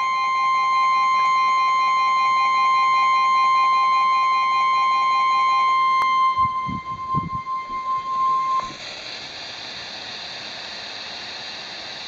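Weather alert radio sounding its long steady warning alert tone through its small speaker, with a second alarm tone underneath that stops about six seconds in. The alert tone cuts off about eight and a half seconds in, leaving steady radio hiss, with a few low bumps just before the cutoff.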